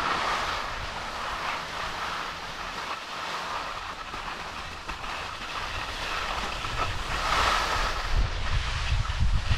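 Ski chairlift running: a steady mechanical rumble and clatter from the lift's cable and chair, with a faint steady hum. Wind buffets the microphone, growing stronger near the end.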